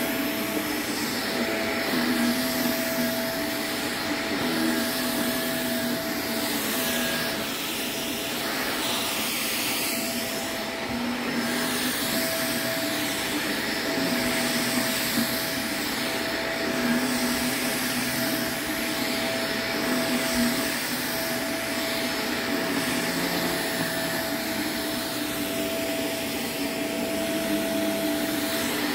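Shark upright vacuum cleaner running steadily on a shag rug, with an even whine and a lower hum that comes and goes as it is pushed over the pile.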